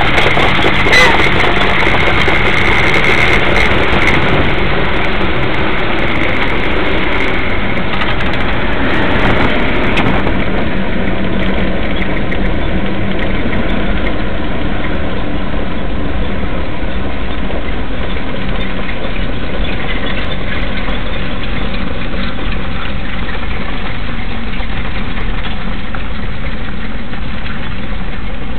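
Engine of a harness-racing mobile starting-gate car running steadily, heard from inside the vehicle along with road and wind noise.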